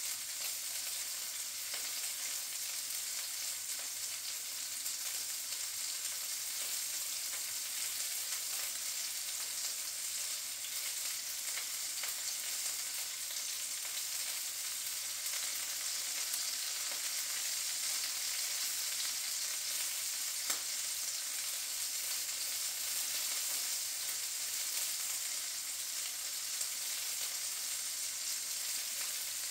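Sausages frying in a pan: a steady high sizzle, with one sharper pop about two-thirds of the way through.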